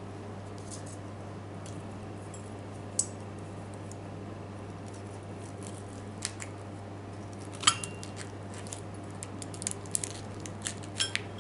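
Metal fork clinking and scraping against a glass saucer as it cuts into a cupcake: scattered sharp clicks, the loudest, with a short ring, about two-thirds of the way through, then a quick run of clicks near the end, over a steady low hum.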